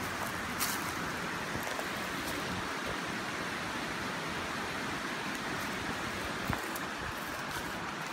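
Waterfall rushing, a steady even hiss of falling water, with a couple of small knocks about half a second in and again about six and a half seconds in.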